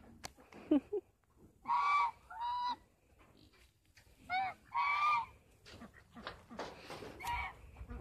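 Domestic fowl calling: about five short, clear, pitched calls, several coming in close pairs, with faint rustling between them.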